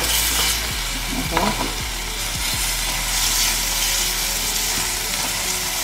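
Marinated chicken pieces sizzling in a little oil in a stainless steel pan over low heat. A spatula scrapes and taps against the pan a few times in the first half as the pieces are flipped.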